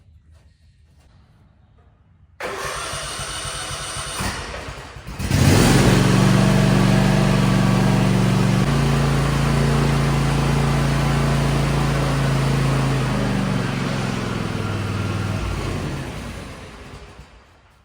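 Kawasaki FR691V V-twin mower engine cranked by its electric starter about two seconds in, catching about five seconds in and running steadily. Its speed drops a step about nine seconds in, and it is shut off and runs down near the end.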